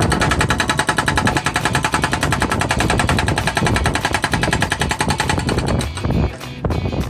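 Hydraulic breaker on a heavy machine hammering concrete rubble in a fast, even run of blows, stopping about six seconds in.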